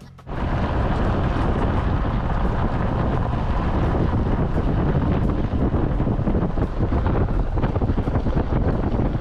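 Wind buffeting the microphone over the steady rumble of a Jeep driving on a dirt road. It starts abruptly a moment in.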